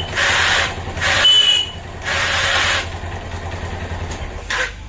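Bajaj Pulsar motorcycle engine running with a steady low hum, broken by three harsh, noisy bursts in the first three seconds and a shorter one near the end. The abnormal noise is blamed on the electric starter and its one-way clutch, jammed and rusted after being under water.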